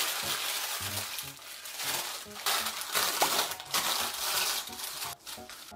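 Sheet of parchment (cooking) paper being crumpled and pressed by hand into a glass heatproof dish to line it: a dense, loud crinkling that stops just before the end.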